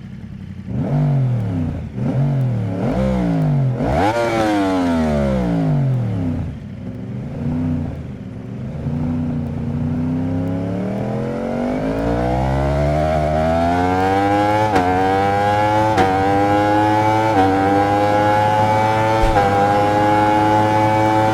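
Yamaha MT-10's crossplane inline-four engine blipped sharply four times in quick succession, then dropping back to a low steady run. It then climbs in pitch in one long rise and holds high, with brief small dips every second or two.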